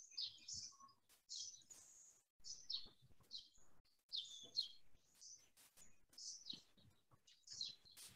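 Faint birds chirping: many short, high chirps in quick succession.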